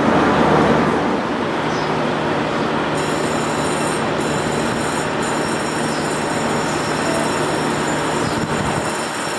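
Diesel railcar engine running with a steady low drone, from a KiHa 66/67 set. About three seconds in, a steady high-pitched whine joins it.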